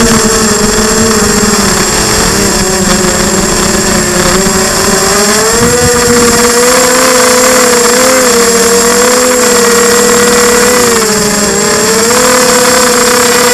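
Quadcopter's electric motors and propellers whirring in flight, heard from a camera on the frame, with a constant hiss over them. The pitch wavers up and down as the throttle changes, with dips about two and a half seconds in and again near eleven seconds.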